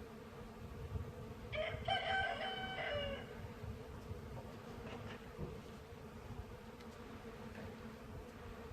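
A rooster crows once, about a second and a half in, a call of under two seconds that rises, holds and drops at the end. Throughout, bees hum steadily.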